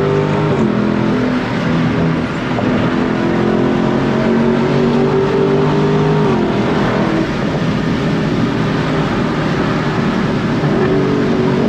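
Dodge Challenger engine running under way, heard from inside the cabin over road noise. The engine note holds steady, drops about half a second in and again about six seconds in, then rises again near the end, as with easing off and shifting in traffic.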